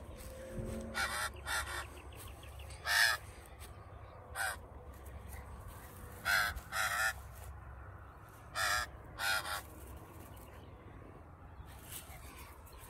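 Australian magpie giving short, harsh calls, about eight of them, several in quick pairs.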